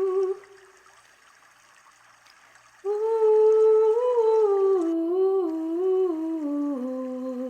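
A voice humming a wordless intuitive chant. A held note breaks off just after the start, and after a pause of about two and a half seconds a new hummed phrase comes in, stepping up and down in pitch and settling on a lower note near the end.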